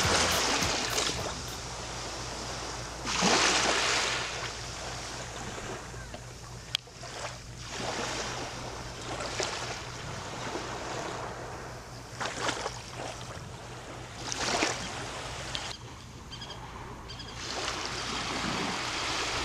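Small waves lapping and washing up onto a sandy beach, the surf swelling and fading every few seconds.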